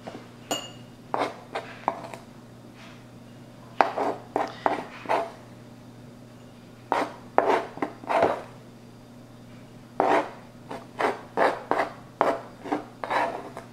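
Metal teaspoon scraping across a plastic cutting board, scooping shaved white chocolate and dropping it into a small glass: short, irregular scrapes in several bunches with pauses between.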